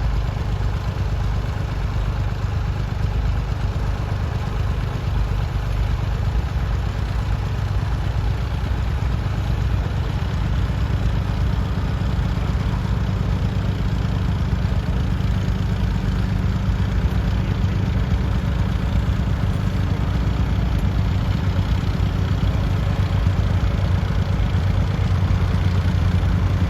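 Massey Ferguson 148 tractor's three-cylinder diesel engine running steadily while ploughing.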